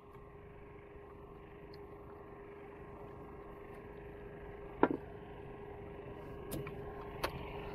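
Quiet open-water ambience around a small wooden canoe, a steady wash of water and breeze with a faint steady hum under it. A short knock about five seconds in and two light clicks near the end.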